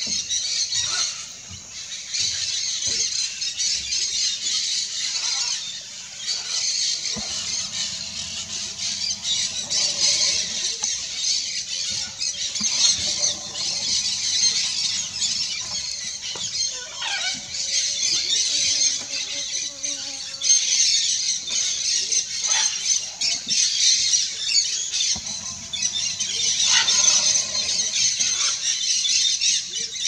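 A crowd of parrots calling at once, red-and-green macaws among them: a dense, high-pitched chatter with louder harsh squawks breaking through now and then.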